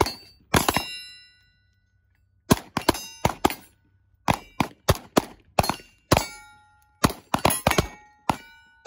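Pistols fired in a quick uneven string of about eighteen shots, several shooters at once. Many shots are followed by the ringing clang of steel targets being hit.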